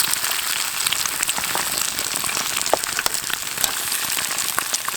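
A hot, high campfire crackling with bacon sizzling in a pan over it: a steady hiss dotted with many sharp snaps and pops.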